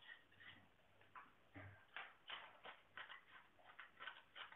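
Faint, irregular scraping and tapping strokes, a few a second, from a knife and hands working at a whole tuna on a cutting board.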